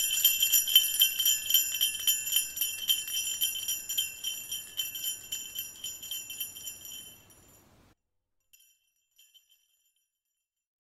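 Sleigh bells shaken in a steady rhythm, dying away over about seven seconds, with a few faint last jingles shortly after.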